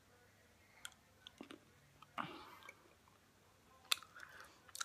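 Faint mouth sounds of a person chewing a jelly bean: scattered soft clicks and smacks, with one brief breathy rush about two seconds in.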